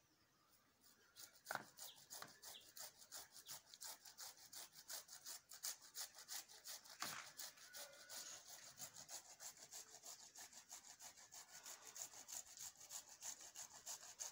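Tomato being grated on a hand grater: faint, quick, even rasping strokes, about five a second, starting about a second in.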